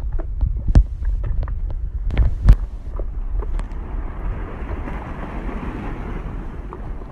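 Footsteps and shoe scuffs on rough rock, with several sharp knocks in the first half, the loudest about two and a half seconds in, over wind buffeting the microphone.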